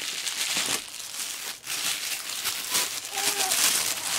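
Plastic bubble-wrap pouch crinkling in the hands as a camera body is slid out of it, in a run of crackly bursts with short pauses.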